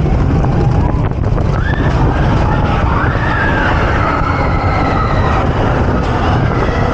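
Runaway Mine Train roller coaster running along its track, a loud steady rumble of the train mixed with wind on the microphone. A few high wavering tones rise and fall over it in the middle of the stretch.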